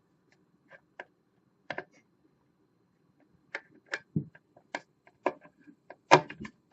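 Irregular small clicks and taps, sparse at first and coming faster in the second half, the loudest about six seconds in: a screwdriver pushing at the retaining tabs of the rocker power switch in a Monoprice Select Mini 3D printer's case.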